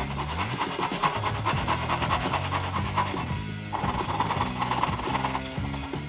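A file or rasp working wood in fast, even strokes, over background music; the rasping stops briefly a little past halfway, then starts again.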